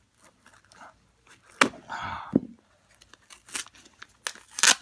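Paper package wrapping being handled and torn open by hand: scattered crinkles and clicks with short tearing rustles, the loudest about two seconds in and again just before the end.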